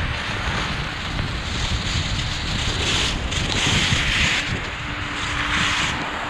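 Wind rushing and buffeting over the microphone at skiing speed, with the hiss of skis carving on groomed snow swelling twice as turns are made.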